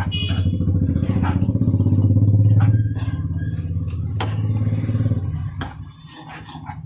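A motorcycle engine running close by with a steady pitch, loudest about halfway through and dropping away after about five seconds. Sharp clinks of a metal ladle against the iron kadai come a few times over it.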